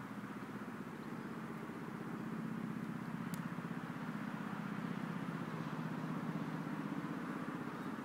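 An engine running steadily with a fast, even pulsing beat, growing a little louder about two seconds in.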